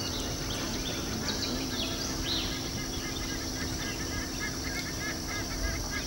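Birds calling: short chirps and falling whistles, then from about halfway a quick run of short repeated notes, over a steady low hum.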